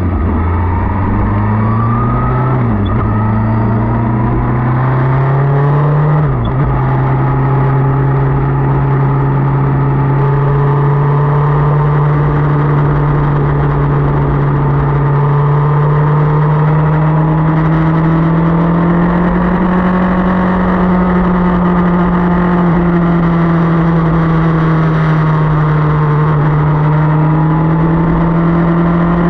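Motorcycle engine under way, heard from the bike. It accelerates through two gear changes, each a rise in pitch then a drop, in the first seven seconds, then cruises at steady revs that creep slowly higher.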